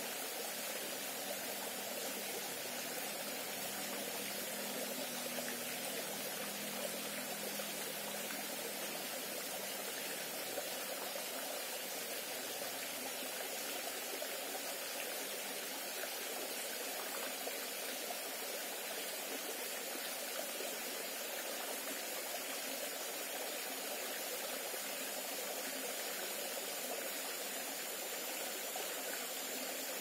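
A shallow rocky stream running over stones and a small cascade: a steady, even rush of water with no breaks.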